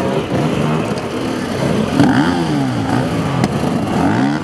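Enduro dirt bike engine revving hard, its pitch rising and falling several times as the rider works the throttle, loudest about two seconds in.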